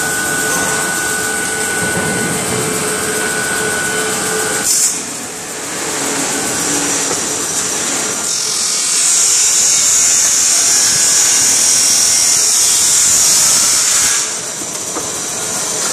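Turret lathe running and cutting metal. Steady machine tones run for the first few seconds, then a loud high hiss from about eight to fourteen seconds in.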